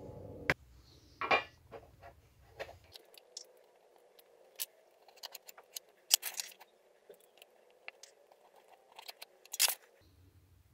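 Light handling sounds on a wooden board: scattered taps, clicks and small knocks as a plastic cooling fan and a round metal tin are set down and moved, with light pencil scrapes as a circle is traced around the tin.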